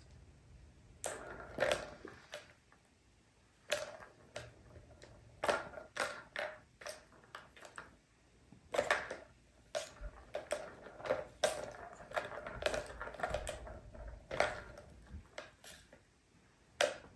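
Balls rolling and rattling through the plastic tracks of a three-tier cat ball tower as kittens bat at them, with irregular clicks and knocks of paws and balls on the plastic.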